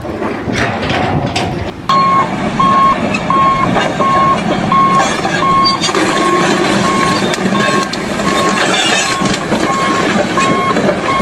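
A vehicle's reversing alarm beeping in an even single-tone pattern, about two beeps a second, starting about two seconds in, over loud engine and work noise.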